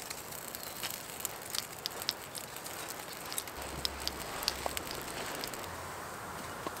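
Freshly lit wood fire of split kindling crackling as it catches, with many sharp, irregular pops.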